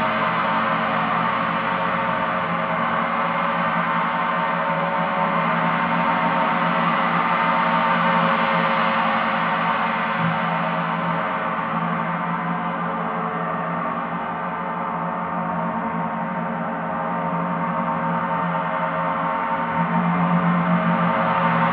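Paiste planetary gongs ringing together in a dense, sustained wash of many overlapping tones, with no single strike standing out. A low tone grows louder about ten seconds in and again near the end.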